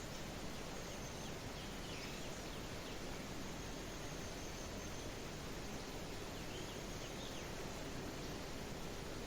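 Steady hiss of a light rain shower with a few faint, high bird chirps scattered through it.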